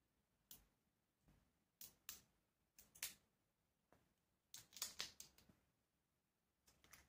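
Faint scattered clicks and taps of a small glass dropper bottle being handled and its dropper cap twisted open, with a quick cluster of clicks about five seconds in the loudest.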